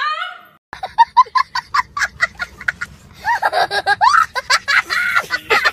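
A woman's voice rising in pitch cuts off about half a second in. After a short gap comes a young boy's fast, rhythmic laughter, which turns into higher, squealing laughter about three seconds in.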